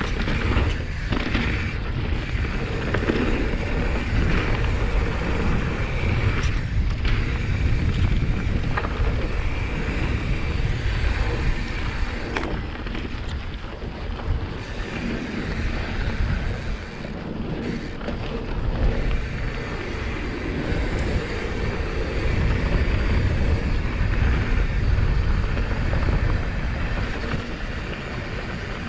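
YT Jeffsy mountain bike riding a rough dirt trail: steady wind noise on the microphone over tyre rumble, with scattered knocks and rattles from the bike over rocks.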